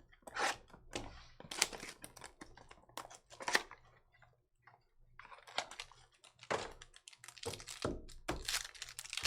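Trading-card packaging and cards being handled: irregular clicks, taps and rustles as the next box is opened and the cards are sorted.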